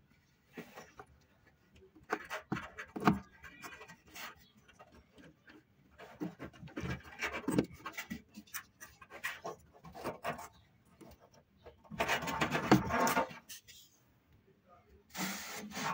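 Irregular knocks, clicks and scraping from hands and tools working on washing machine parts during a bearing change, with two longer stretches of rubbing or scraping near the end.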